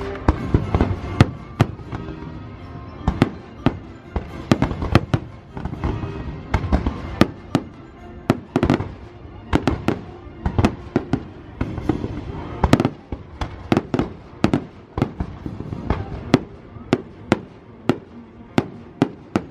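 Fireworks show: aerial shells bursting in rapid, irregular succession, many sharp bangs a second with some louder reports standing out, over show music.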